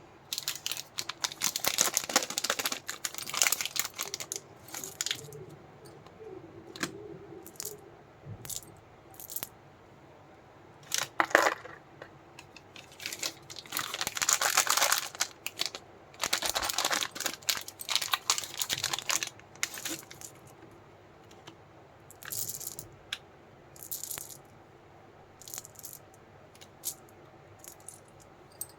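Candy packets being handled and opened: small hard-coated Cadbury Gems chocolates rattling and clicking against each other and their plastic packaging, in irregular bursts with short pauses.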